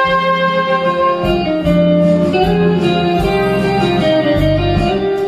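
Enka backing track playing an instrumental passage: a guitar melody in short shifting notes over bass and drums with regular cymbal strokes. A long held cornet note dies away right at the start.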